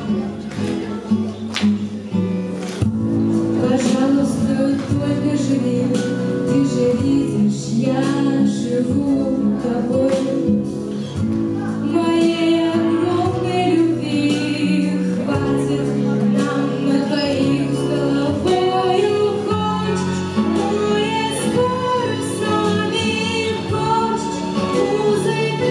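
A girl singing a pop song into a microphone over a recorded instrumental backing track.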